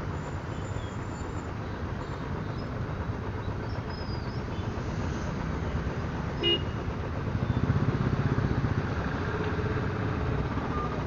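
Road traffic: vehicle engines running steadily, with one short horn toot about six and a half seconds in and the engine rumble growing louder for a couple of seconds after it.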